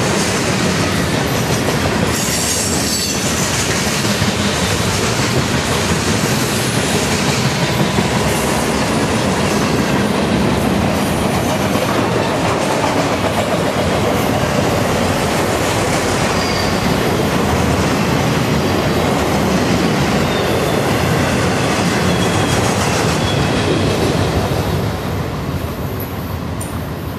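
Freight train's boxcars and autoracks rolling past close by: a steady rumble and clatter of steel wheels on rail, with faint high wheel squeals now and then. It fades toward the end.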